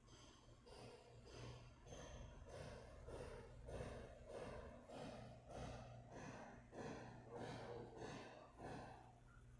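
Faint, quick, even breaths close to the microphone, about one and a half a second, over a low steady hum. The breaths start just after the beginning and stop shortly before the end.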